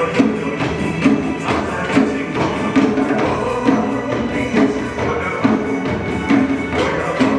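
Upbeat pop song with a steady beat, with a group of performers striking African drums with sticks in time to it.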